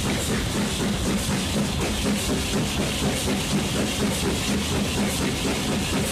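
Steam locomotive working slowly out of a station, heard from close by. Its exhaust chuffs come about twice a second over a constant hiss of steam and a low rumble.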